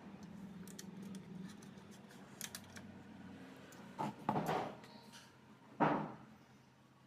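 Small clicks and knocks of parts and tools being handled on a work surface, with a few louder knocks about four and six seconds in.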